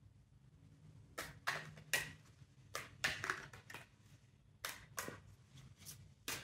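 A tarot deck being shuffled by hand: a series of quick, irregular swishes and slaps as the cards are pushed from hand to hand.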